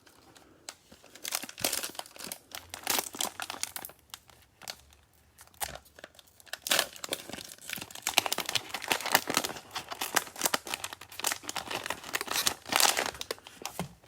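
A trading-card pack wrapper being crinkled and torn open. It comes in irregular crackling rustles with short pauses, as the pack is slow to open.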